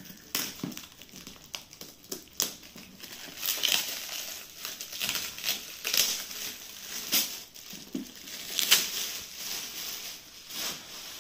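Shiny red metallic gift wrap crinkling and rustling as a present is unwrapped by hand, in irregular crackly bursts, the loudest a little before nine seconds in.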